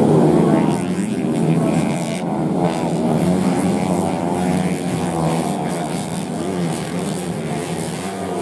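Several racing underbone (bebek) motorcycle engines revving hard together. Their overlapping pitches keep rising and falling as the riders accelerate, shift and back off through the corners of a dirt grasstrack.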